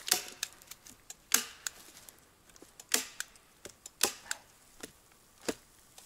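Hand staple gun firing staples to fasten plastic sheeting over a log structure: five sharp clacks about a second or so apart, with fainter clicks between them.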